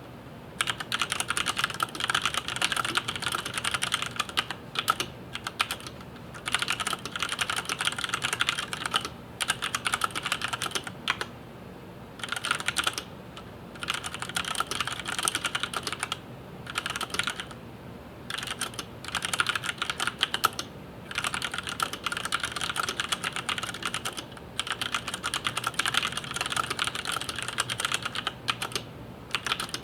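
Typing on a Filco Majestouch 2 Ninja mechanical keyboard with tactile Cherry MX Brown switches: fast runs of key clacks a few seconds long, broken by short pauses.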